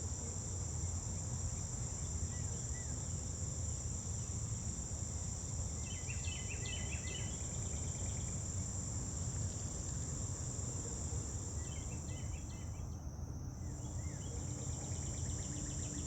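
Steady high-pitched insect chorus, such as crickets, with two short bursts of chirping about six and twelve seconds in, over a steady low rumble.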